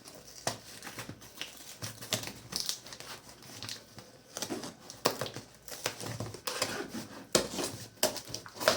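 A cardboard shipping box and its packaging being opened by hand: irregular crinkling, rustling and tearing with scattered sharp clicks and knocks.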